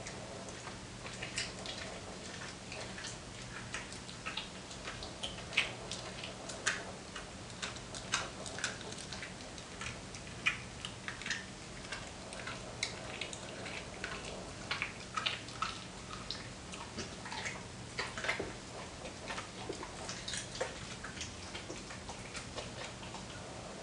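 Dalmatian chewing and tearing at a large chunk of raw meat: irregular wet smacks and clicks of teeth and jaws, several a second at times, over a faint steady hum.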